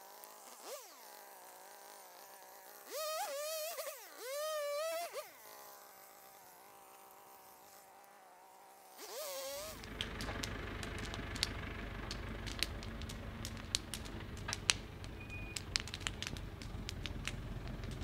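A dog whining: a short rising-and-falling cry, then two longer wavering high cries about three to five seconds in. From about nine and a half seconds, a Renault tractor's engine runs steadily, with a bonfire crackling in sharp pops over it.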